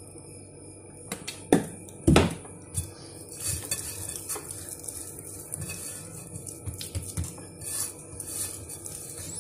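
Two sharp clinks of kitchenware about one and a half and two seconds in, then light knocks and handling noises of a hand rubbing oil over kneaded naan dough in a glass bowl.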